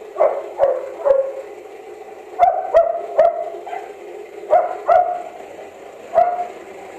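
Dog barking in short bursts of two or three barks, about nine barks in all.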